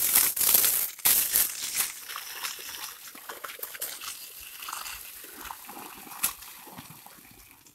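Water gushing from the end of a hose onto wet soil, splashing and pooling in a muddy basin around a sapling. It is loudest in the first couple of seconds and then settles to a quieter, steady splashing, with one brief sharp knock about six seconds in.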